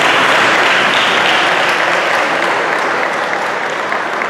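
Audience applauding in a dense, steady burst that sets in just before and slowly eases off toward the end.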